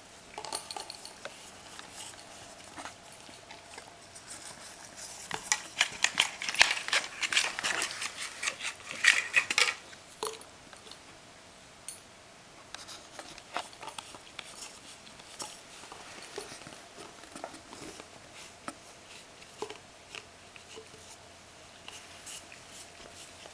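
A Polish Lowland Sheepdog licking and nosing an empty paper coffee cup across a rug: a run of rapid clicks, scrapes and rattles from the cup, loudest from about five to ten seconds in, then fainter and more scattered.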